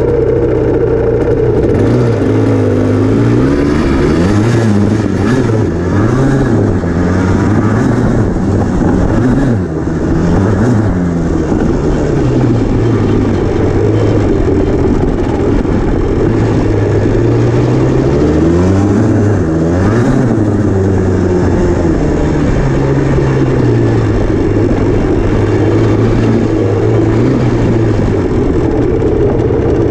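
Yamaha Blaster ATV's two-stroke single-cylinder engine under way on a dirt trail, revving up and easing off again and again as the throttle is worked. There is a brief drop in level about nine to ten seconds in.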